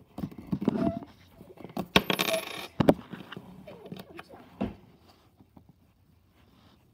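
A coin clicking and scraping against a hard tabletop as a hand rubs and handles it, with the loudest clicks about two and three seconds in. It grows faint in the second half.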